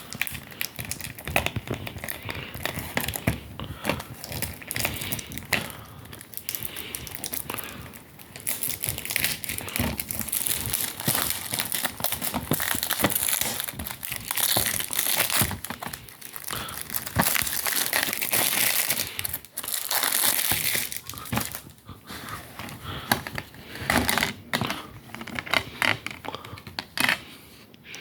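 Plastic shrink-wrap being torn and crumpled off a DVD box set: crackling and crinkling with sharp clicks, loudest in long stretches through the middle, with short pauses between.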